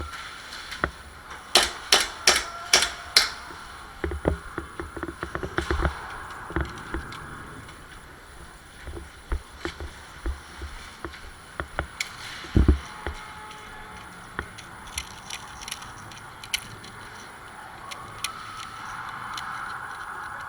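Airsoft gunfire in close-quarters play: a quick string of five sharp cracks about two seconds in, then scattered lighter clicks and knocks, with a heavier double knock about halfway through.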